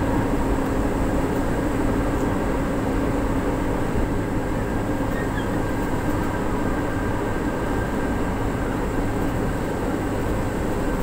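Steady running noise of an MRT Line 3 train car in motion, heard from inside the carriage: an even rumble with a few steady humming tones running through it.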